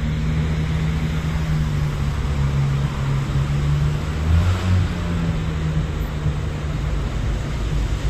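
A motor engine running steadily, a low drone under a wash of noise, swelling slightly about halfway through.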